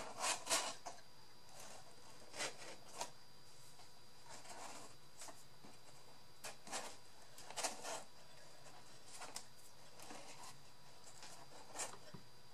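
Paper and cardboard craft pieces being handled, with scattered short rustles and scrapes and quiet stretches between them.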